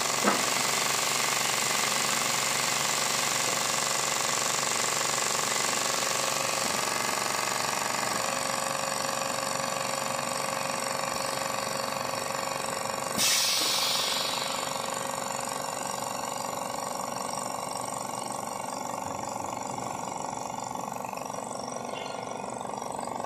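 Vacuum compression packing machine at work, with its pump and the twin-head air compressor feeding it running steadily. There is a click just after the start, and a short burst of hissing air about thirteen seconds in.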